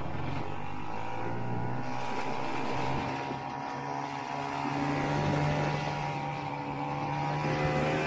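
Vintage Ski-Doo snowmobile's two-stroke engine running under way with a steady drone. Its pitch and loudness sag slightly a few seconds in, then climb again about halfway through.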